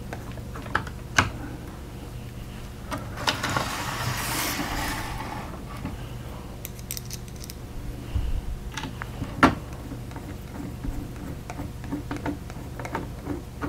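Screws being driven with a hand screwdriver into a 3D-printed plastic clock frame: scattered clicks and light rattles of the plastic parts and gears, with a longer scraping slide about four seconds in as the clock is turned round on the table.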